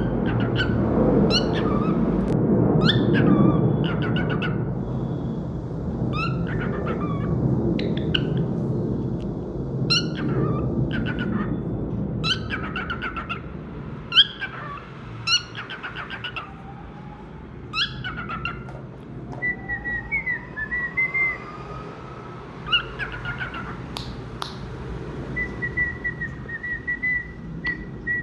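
Cockatiel chirping in short sharp calls every second or two, with warbling whistled song phrases in the second half.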